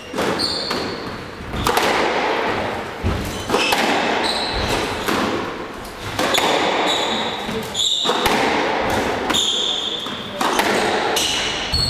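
Squash rally: the ball smacking off rackets and the court walls in quick, irregular strikes that ring in a reverberant hall, with short high sneaker squeaks on the wooden floor between shots.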